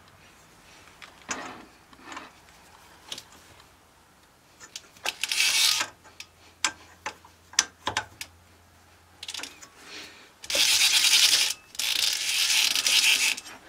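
Hand adjustments on a four-jaw lathe chuck while a cast iron cylinder is being indicated in: scattered metal clicks and knocks from the chuck key and jaws, a short scrape about five seconds in, and two longer, louder stretches of rubbing and scraping near the end.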